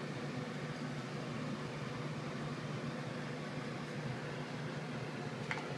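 A steady low background hum with an even hiss: the room tone of a small room. There is a faint click near the end.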